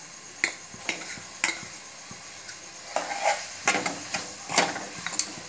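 Onion-tomato masala sizzling as it fries in an aluminium pressure cooker, with a steel spoon scraping and knocking against the pan. A few separate knocks come in the first second and a half, then stirring strokes come thick and fast from about three seconds in. The masala is being fried until its raw smell goes.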